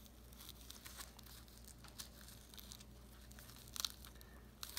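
Faint rustling with a few small clicks and crackles, a little cluster about four seconds in, as hands work the Velcro straps of a neoprene dog boot, trying to thread them through the boot.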